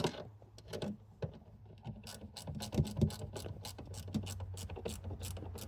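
A ratchet clicks in quick, irregular runs of sharp clicks from about two seconds in as a screw is tightened down.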